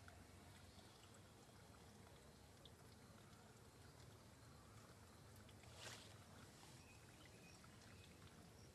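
Near silence: faint steady outdoor background noise with a few soft ticks, and one brief soft rustling noise about six seconds in.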